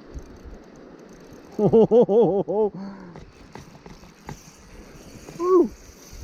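A man whooping with excitement, a quick run of about five "woo" calls, then a single shorter whoop near the end, over the steady rush of river water.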